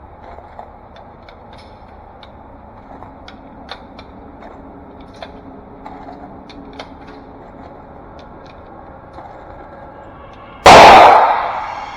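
A single AR-15 rifle shot near the end, loud and sharp, with a long ringing decay, following about ten seconds of low range background with scattered faint clicks.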